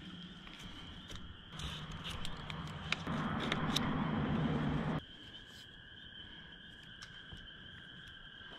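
A steady night chorus of frogs calling, heard as a continuous high trill. Over the first half come clicks and a louder rustling of gear being handled, which cuts off abruptly about halfway through.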